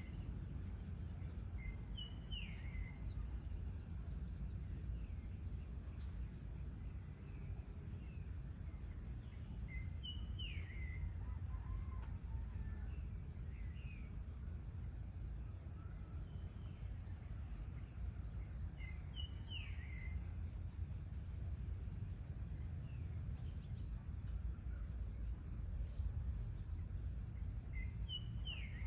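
Evening outdoor ambience: a low steady rumble of distant background noise under a constant high-pitched insect drone, with a bird giving short falling calls about every nine seconds and occasional bursts of rapid high ticking.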